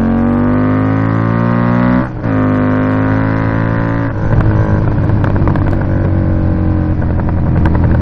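2018 Indian Scout Bobber's V-twin through a Freedom Performance 2-into-1 Combat exhaust, accelerating under load while riding. The note climbs, dips with an upshift about two seconds in, climbs again, and after a second upshift about four seconds in settles to a steady cruise.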